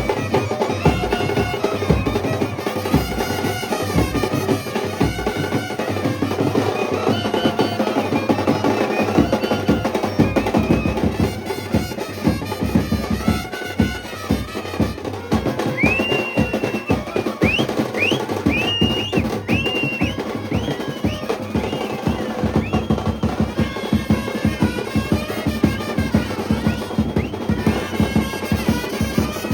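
Processional brass band playing a melody over fast, steady drumming with bass drum and snare. About halfway through, a run of short high sliding notes rises above the band.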